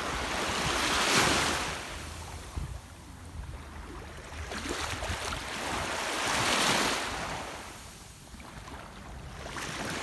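Small sea waves washing up on a sandy beach, surging and falling back in two swells about five seconds apart, with another building near the end.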